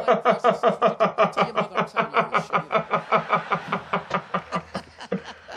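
A man laughing hard in one long run of rapid, even 'ha' pulses, about six a second, dying away near the end.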